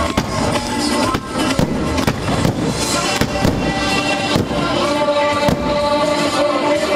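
Aerial fireworks shells bursting in a rapid, irregular run of bangs, several a second, over loud music from the pyromusical show's soundtrack.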